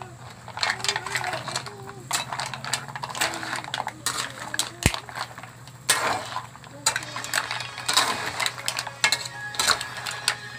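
Mussels in their shells being stirred and tossed in a pot, with shells and spoon clattering and scraping in quick, irregular clicks and one sharper knock about five seconds in.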